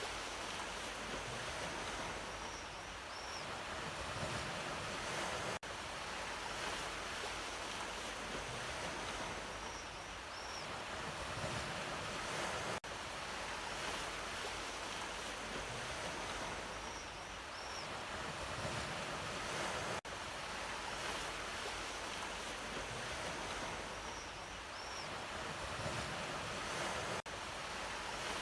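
Ocean waves washing onto a shore in a continuous surf. The recording is a loop that repeats about every seven seconds, with a brief dropout at each join.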